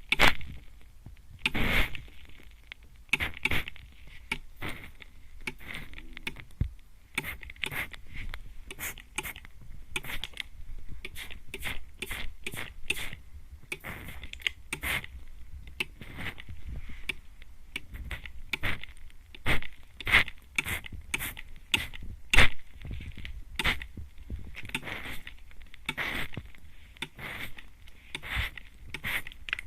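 Mist spray bottle spritzed over and over right at the ear of the microphone, each squeeze a short hiss of spray. The spritzes come about one to two a second, irregularly spaced and varying in loudness.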